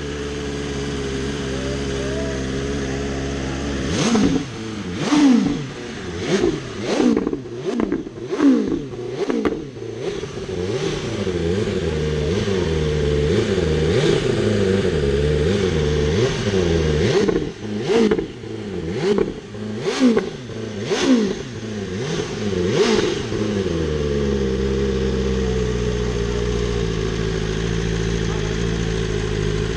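Old-shape Yamaha R1's inline-four engine idling, then revved in a long run of quick throttle blips, each rising and falling sharply, before settling back to a steady idle near the end.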